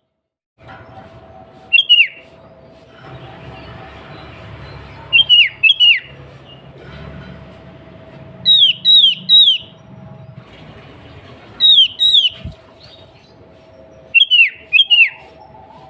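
Sooty-headed bulbul calling: loud, short, sharply falling whistled notes in clusters of one to three, repeated every three seconds or so. A faint steady hum and background noise lie underneath, with one dull thump near the end.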